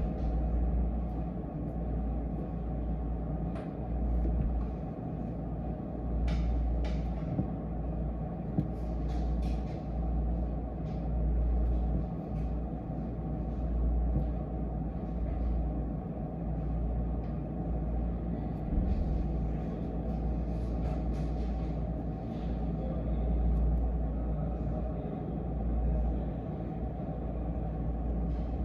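Steady low background rumble, rising and falling slightly, like distant traffic or room ambience, with scattered faint light clicks, several of them between about six and ten seconds in.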